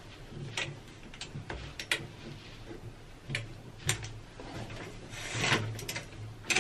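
Shower curtain hooks clicking against the curtain rod as the curtain is hung, a string of separate sharp clicks, with the plastic curtain rustling for a moment about five seconds in.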